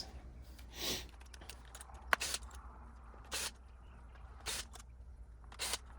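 A few faint, short clicks and scrapes of a small Torx screwdriver and hands working on the radio's screen assembly, one sharp click about two seconds in, over a low steady hum.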